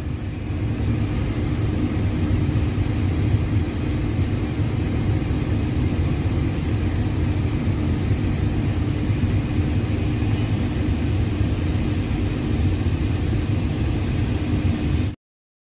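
Steady cockpit background noise of an Airbus A320neo with its systems powered: a constant low rumble and hum from the air conditioning and equipment-cooling fans. It cuts off abruptly near the end.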